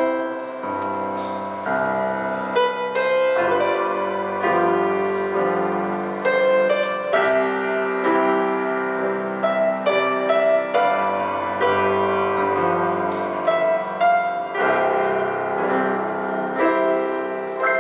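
Piano playing instrumental music: chords changing every second or so over held bass notes.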